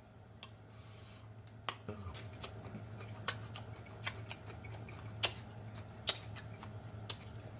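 Crisp cucumber being chewed close to the microphone: scattered sharp crunches and mouth clicks about once a second, over a faint low steady hum.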